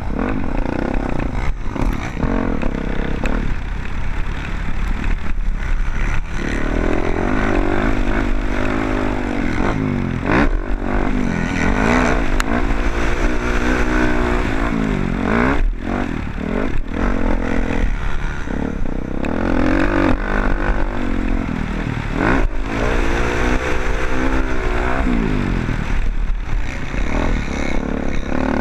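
Motocross bike engine revving up and falling back over and over, its pitch climbing and dropping every couple of seconds, over a steady low rumble with scattered sharp knocks.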